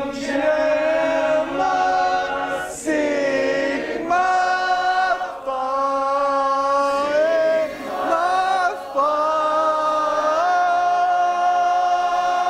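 A group of voices singing together unaccompanied, holding long chorded notes that change every second or two with short slides between them.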